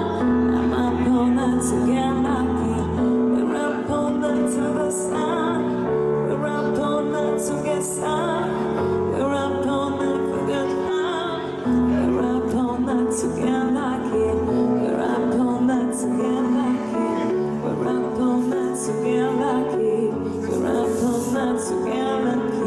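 A woman singing into a handheld microphone, accompanied on piano.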